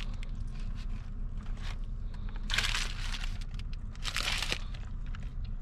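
Burrito wrapper crinkling as it is handled, in two short rustles, over a steady low hum.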